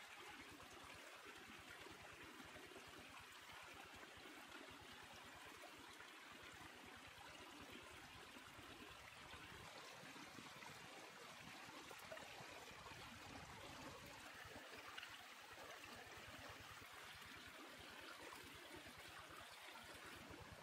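A small stream flowing: a faint, steady rush of water.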